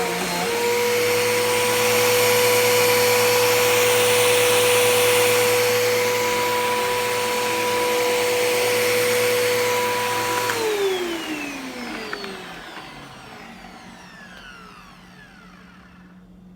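Bissell PowerForce Helix Turbo upright vacuum cleaner's motor running steadily with a high whine and rushing air. About ten seconds in it is switched off, and its pitch falls as the motor spins down to a stop.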